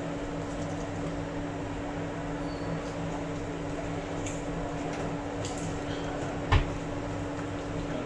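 Steady hum of workbench equipment running, with a single soft knock about six and a half seconds in.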